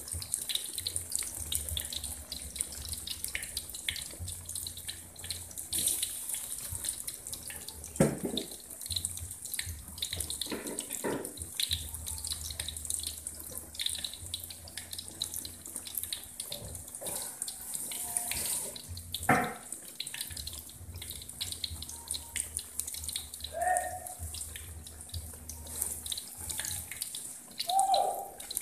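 Batter-coated eggplant slices frying in hot oil in a wok: a steady crackling sizzle. A few short sliding tones sound behind it, the loudest about eight seconds in and again around nineteen seconds.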